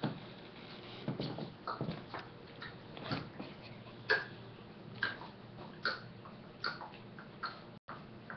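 Pomeranian crying while nursing: short high whimpers, about one a second through the second half. There are low bumps and rustles in the first three seconds.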